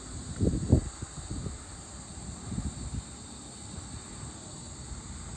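Steady chorus of crickets with gusts of wind buffeting the microphone, the strongest gust about half a second in.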